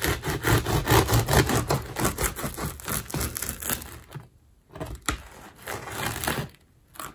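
Serrated bread knife sawing through the crust of a freshly baked round loaf: a dense, crunchy crackle that thins out about four seconds in to a few scattered crackles.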